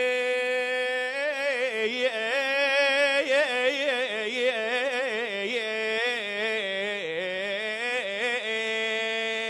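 A male radood singing a Husseini elegy, drawing one word out into a long melismatic phrase. The voice holds a steady note, breaks into quick wavering ornaments about a second in, and settles on a held note again near the end.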